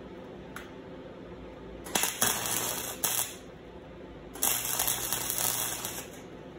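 Electric arc welding chain links to a steel sheet: two spells of loud crackling, each about a second and a half long, the first about two seconds in and the second about four and a half seconds in, with a low hum from the welder under each.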